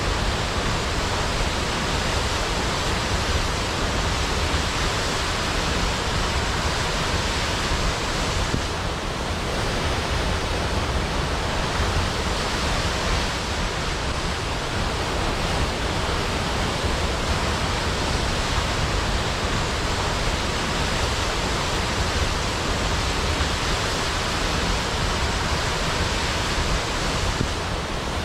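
Large waterfall with water falling steadily onto a pool, a dense unbroken rushing noise that does not change.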